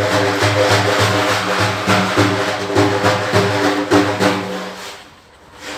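Rhythmic music of steady frame-drum beats over a low droning tone, stopping about five seconds in.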